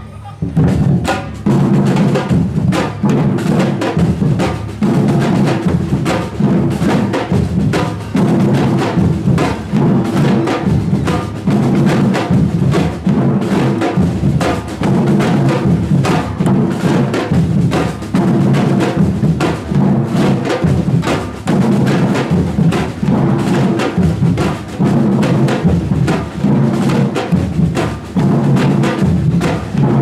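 Samba-style street drum band playing a loud, driving rhythm on large silver surdo drums struck with mallets and sticks, the full beat coming in about a second in.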